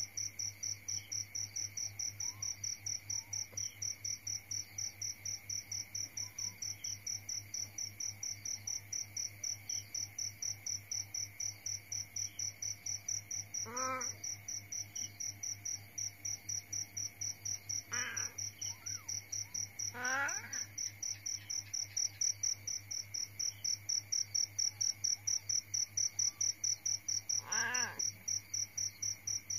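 A cricket chirping steadily at a high pitch, about three pulses a second, over a low steady hum. A cat meows four times in the second half, short calls a few seconds apart.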